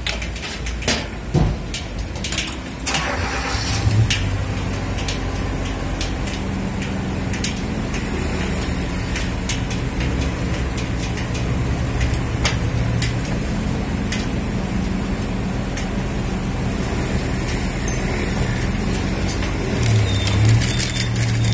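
Street traffic: a motor vehicle engine running close by with a low hum that swells and fades. A few sharp taps and clicks come in the first few seconds.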